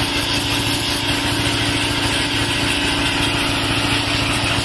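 Pressure washer running steadily: its motor and pump make a fast, even pulse beneath the hiss of the water jet on a motorcycle's drive chain and rear sprocket, rinsing off chain cleaner.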